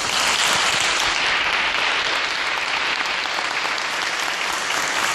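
Audience applauding: a steady spread of many people clapping.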